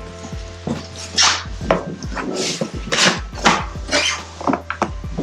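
Cardboard shipping box being opened by hand: a quick series of short tearing and scraping noises from packing tape and cardboard, over a steady low hum.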